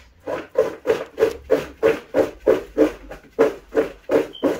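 Raw potato chunks being tossed in a plastic mixing bowl to coat them with dry seasoning: a rhythmic shaking, about three strokes a second.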